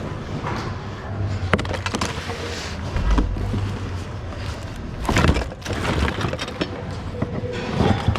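Mixed goods being rummaged through in a thrift-outlet bin: irregular knocks, clatter and rustling, with louder bursts of shuffling about five seconds in and near the end.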